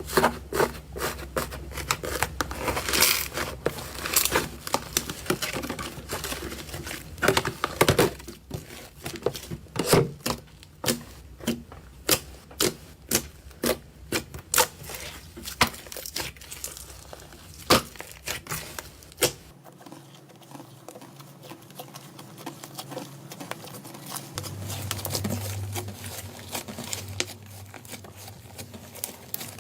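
Slime being squeezed and pressed by hand, making crackling and popping sounds as it is worked. About two-thirds of the way in it cuts to a quieter, softer squishing.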